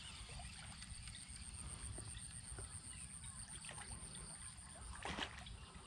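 A hooked snakehead splashing at the surface as it is drawn toward the bank, with one louder splash about five seconds in. Low wind rumble on the microphone underneath.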